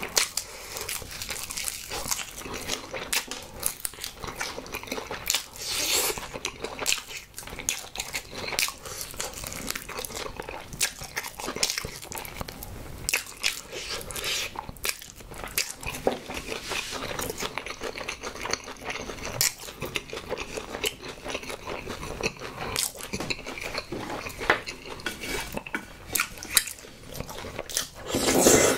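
Close-miked biting and chewing of a honey-glazed chicken drumstick: sticky, wet mouth sounds with crunching as meat is pulled off the bone. Near the end comes one loud, longer slurp of cream pasta noodles.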